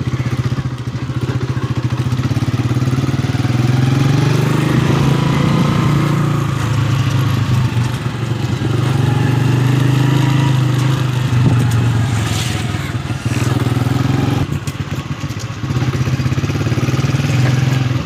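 Honda motorcycle engine running as it is ridden, its note rising and falling a few times with the throttle.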